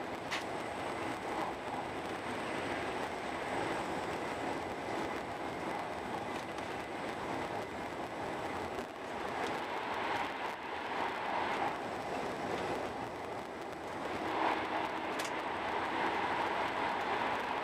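Steady running noise of a Eurostar Italia high-speed train travelling at speed, heard from inside the passenger carriage, with a faint click or two.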